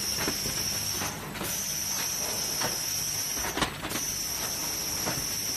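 Cellophane overwrapping machine running: a steady high whine that breaks off briefly about every two and a half seconds, over a low hum, with a few light clicks from the mechanism.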